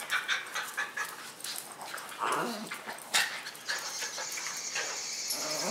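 Dogs playing on a tile floor: claws clicking and tapping, with a short whine about two seconds in and another near the end.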